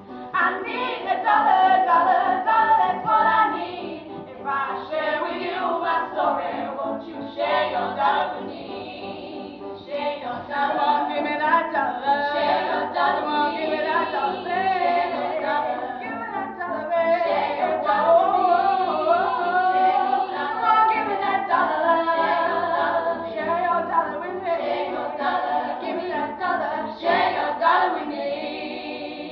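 Group of teenage girls singing a song together.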